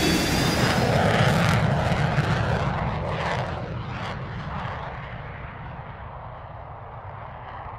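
Jet engine noise: a loud rush that holds for about two seconds and then dies away steadily, like a jet sweeping past.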